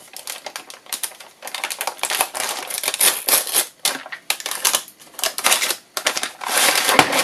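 Kraft wrapping paper crinkling and tearing as a taped package is pulled open by hand. A dense run of sharp crackles, heaviest near the end.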